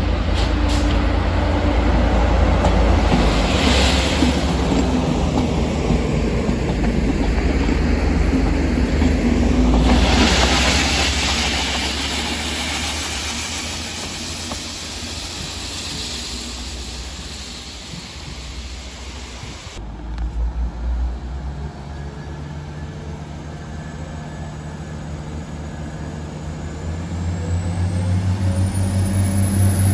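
A Network Rail multi-purpose vehicle working as a rail head treatment train runs past, its diesel engine and wheels on the rails loudest as it goes by. After a cut, a Class 175 diesel multiple unit's engine idles with a steady low hum, then revs up with a rising whine near the end as the train pulls away.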